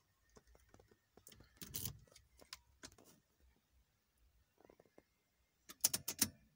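Light clicks and knocks from handling around the steering column and ignition key, with a quick run of sharp clicks near the end, the loudest sound. The engine is not running.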